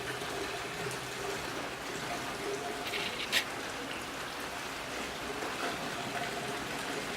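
Steady hiss of running or falling water, with a single sharp click about three and a half seconds in.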